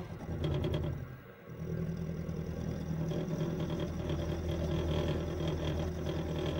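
Bench-top mini milling machine running with a steady motor hum, its end mill working the end of a steel drawbar held in the vise.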